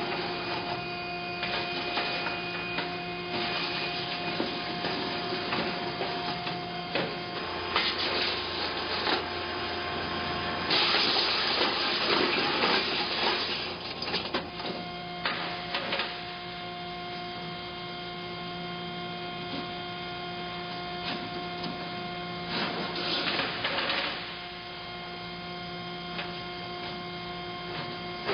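Machine for assembling segmented pipe elbows running: a steady electric hum, with several short bursts of drive noise as it moves, the longest and loudest about eleven seconds in.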